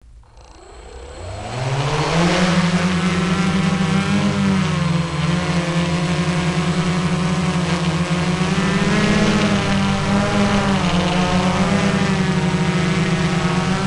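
Quadcopter's electric motors and propellers spinning up from rest, rising in pitch over about two seconds, then a loud steady buzzing hum with a gently wavering pitch as it lifts off and climbs.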